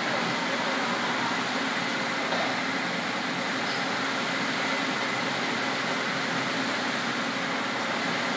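Steady mechanical hum of a factory floor, with no distinct knocks or events.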